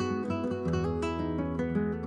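Background music: an acoustic guitar picking a run of quick plucked notes over sustained lower notes.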